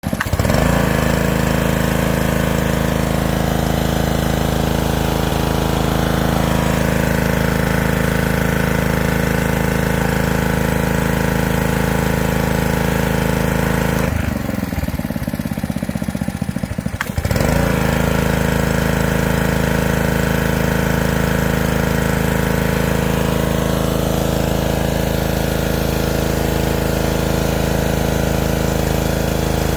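Honda single-cylinder four-stroke engine on a Ryobi pressure washer running steadily at speed, with the jet of water hissing from the wand. About halfway through, the engine note sags and stutters for roughly three seconds, then picks back up. The machine is said to have a carburettor problem: it runs fine at high RPM but has trouble idling.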